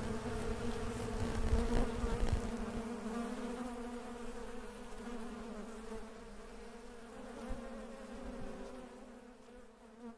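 A mass of bees buzzing in a steady, even hum that slowly fades out toward the end. There is some low rumbling in the first couple of seconds.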